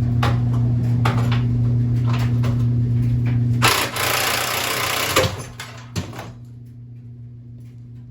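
A power tool runs with a steady hum for a few seconds. Then a loud rushing burst of noise and a couple of knocks follow as the unwanted part drops to the floor.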